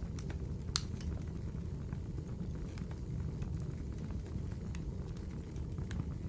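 Wood fire burning in a fireplace: a steady low rumble of flames with sparse crackles and pops, the sharpest pop about a second in.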